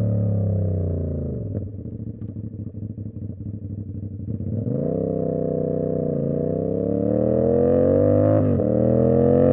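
Tuned CFMoto 450SS parallel-twin motorcycle engine coming off the throttle, its pitch falling, then crackling and popping on the overrun for a few seconds. It then pulls hard again with a steadily rising pitch and a quick upshift near the end.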